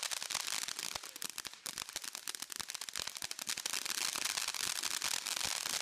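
Ground fountain fireworks spraying sparks, a steady hiss packed with rapid, irregular crackling pops that thin out briefly about a second and a half in.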